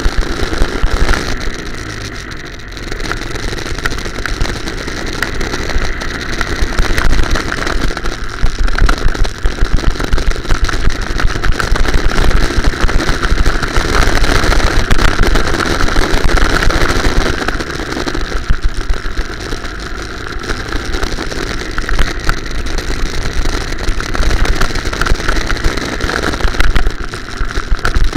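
Go-kart engine running while the kart is driven around the track, heard up close from a camera mounted on the kart. The sound is loud and continuous, with its level dropping a little about two seconds in and again near the middle.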